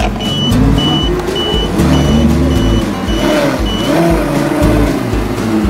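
A row of short, high electronic beeps, about two a second, stopping about four seconds in. Under them is a loud low rumble with tones that rise and fall.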